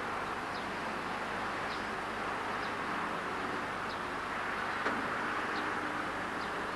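Distant SJ T44 diesel locomotive running steadily as it approaches along the yard track, with short high chirps about once a second.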